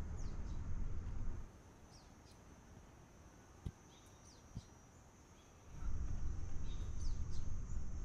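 Birds chirping with short, quick downward calls. A low rumble, louder than the birds, comes in the first second and a half and again from about six seconds in.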